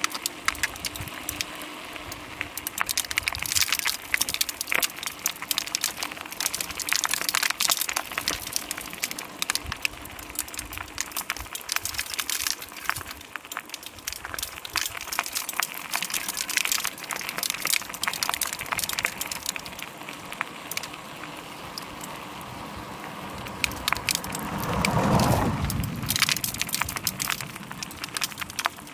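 Continuous irregular crackling and crunching of loose road surface. About twenty-five seconds in, a vehicle passes by, its sound falling in pitch as it goes.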